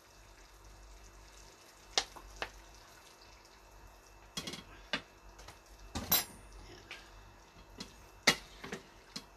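About six short clinks and knocks of kitchen utensils and a bottle, spaced a second or two apart, as soy sauce is measured out and poured.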